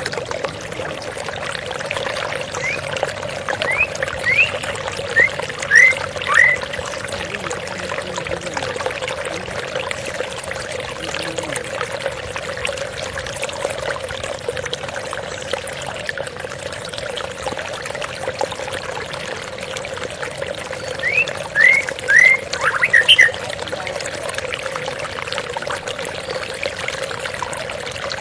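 Water flowing and pouring steadily. A small bird cuts in with a few short chirps about 3 seconds in and again near 21 seconds.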